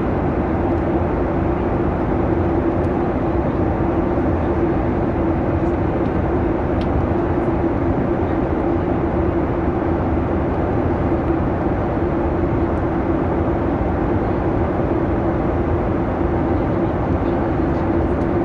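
Boeing 737 cabin noise in cruise: a steady, unbroken rush of engine and airflow noise with a constant low hum running through it.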